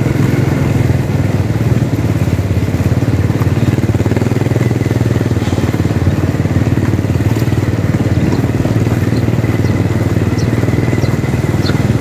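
Motorcycle engine running steadily while being ridden, heard from the rider's seat.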